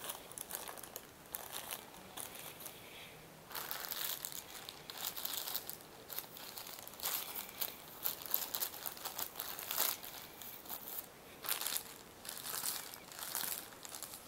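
Clear plastic bag crinkled and crumpled by hand in irregular crackling bursts, with a short lull about three seconds in.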